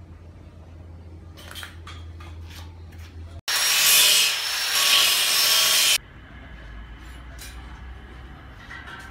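Workshop handling sounds: a steady low hum with scattered light knocks and clicks, broken in the middle by about two and a half seconds of loud rubbing noise from a roll of HPL laminate sheet being handled on the bench, which cuts off suddenly.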